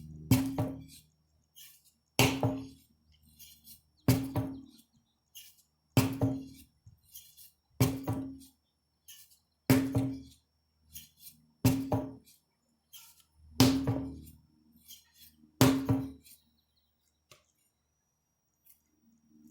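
A 25 lb sledgehammer striking a target in a steady rhythm, about one hit every two seconds, each a heavy impact followed by a low ringing that dies away. Nine strikes, ending about four seconds before the end.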